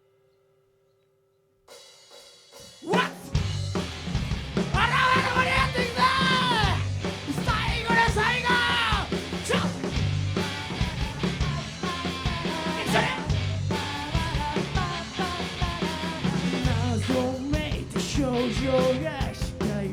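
A live rock band, drums and electric guitar, kicks into a song about three seconds in after a near-silent pause, playing loudly and steadily, with a voice yelling over the opening bars.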